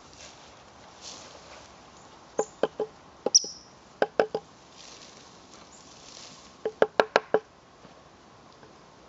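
Short-tailed weasels in a wooden nest box give quick bursts of short, sharp knocking clucks, a few at a time. The biggest burst is six in under a second near the end, and there is one brief high squeak about a third of the way in.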